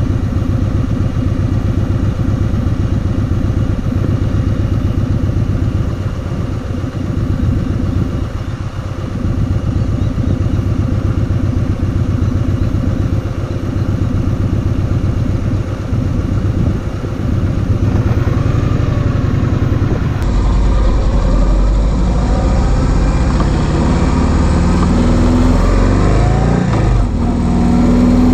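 Kawasaki Vulcan 2000's big V-twin engine running under way, a steady low throb. About two-thirds of the way in, the sound turns suddenly heavier and deeper. Near the end, the revs climb.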